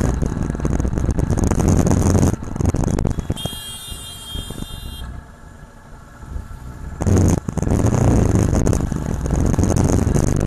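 Wind buffeting and road noise on a camera riding a moving motorcycle, with the engine running underneath. It drops much quieter for a few seconds in the middle, as the bike slows, then comes back loud. A brief high-pitched tone sounds about three and a half seconds in.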